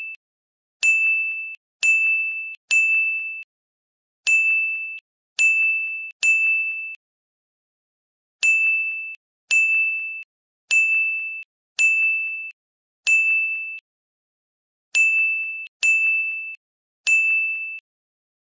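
Score-counter ding sound effect: a bright, bell-like electronic tone, played fourteen times at uneven intervals, one ding for each point added to the on-screen tally. Nothing else is heard between the dings.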